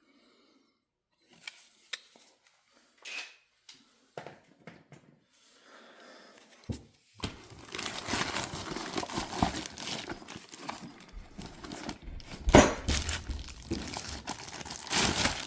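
Packaging being handled: a few light clicks, then continuous crinkling and rustling of plastic and cardboard from about seven seconds in, with several sharp knocks as hard objects are set down or bumped, the loudest about twelve seconds in.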